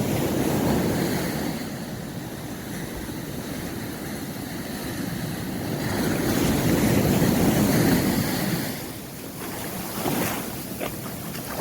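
Sea waves breaking and washing up on a sandy beach, with wind buffeting the microphone. The wash swells louder about six to eight seconds in, then falls away.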